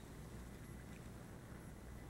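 Faint, steady low rumble of distant airport background noise, with no clear engine whine or single event standing out.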